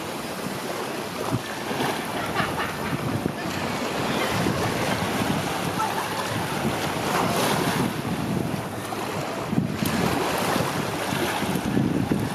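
Sea surf washing against a rocky shore, with wind buffeting the microphone in uneven gusts.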